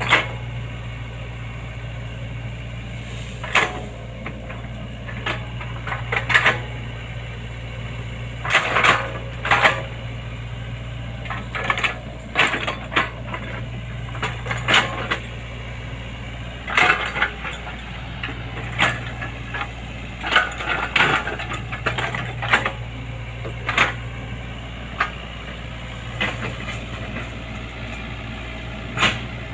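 Excavator at work: its diesel engine runs steadily, with short sharp clanks breaking in every second or two.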